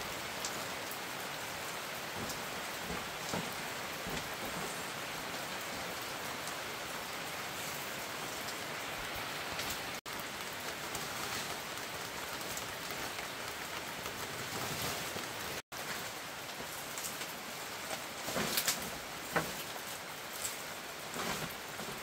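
Heavy rain falling, a dense steady hiss. It breaks off for an instant twice, and a few sharper drop-like ticks stand out near the end.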